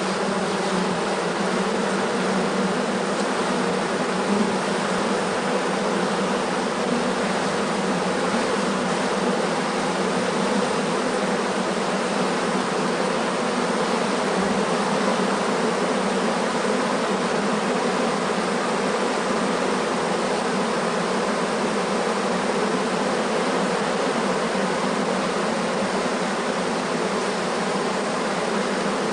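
Many honeybees buzzing together inside a beehive: a dense, steady hum with no breaks.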